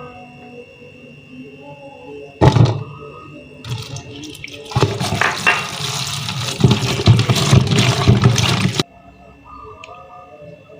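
Water running from a kitchen tap for about four seconds, then cut off suddenly, after a single sharp knock.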